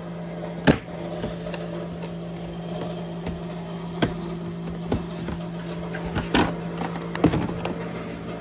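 Plastic side panel of a Can-Am Renegade XXC 1000 ATV being pulled off by hand, its fasteners letting go with several sharp snaps and knocks, the loudest near the start. A steady low hum runs underneath.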